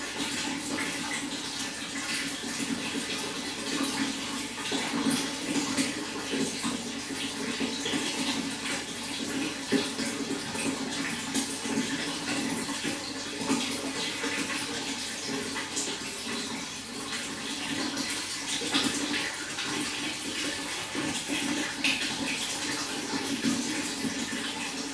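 Running water flowing steadily, with a constant splashing, gurgling rush.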